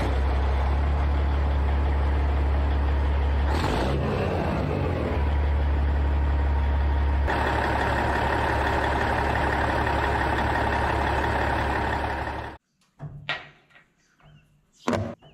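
Heavy diesel truck engine running, heard in spliced clips that change about 4 and 7 seconds in and cut off suddenly near the end. After that, a few light metallic clinks of bolts and tools being set down.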